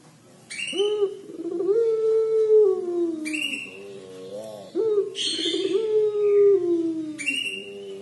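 Puter pelung dove (ring-necked Barbary dove) giving its long drawn-out 'crying' call three times, each wail holding its pitch and then sliding down, with another beginning near the end. Each call opens with a brief hissing rush.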